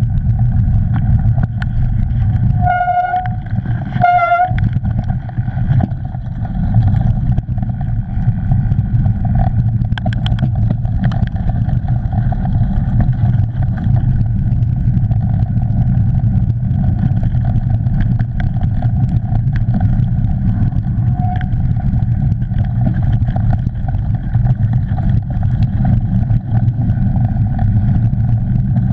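Mountain bike rolling fast along a dirt trail, heard through a handlebar-mounted action camera: a steady low rumble of tyre noise, wind and camera shake, with a faint steady whine over it. Two short high tones sound about three and four seconds in.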